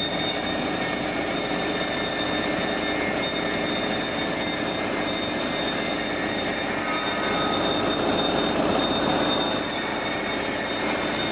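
A 100L vacuum emulsifying mixer running steadily with its tank under vacuum: a continuous machine drone with a constant high whine over it.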